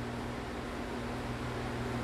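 Steady background room noise: a low, even hum under a constant hiss.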